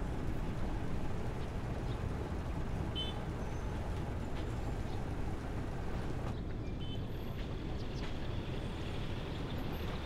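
Steady low rumble of a river ferry's engine running underway.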